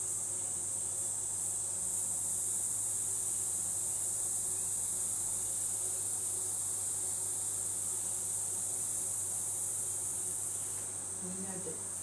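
Insects shrilling in a steady, high-pitched drone that eases off slightly near the end.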